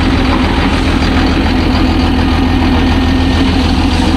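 Heavy diesel engine of a construction machine running steadily, with a deep, even low pulse and a steady hum.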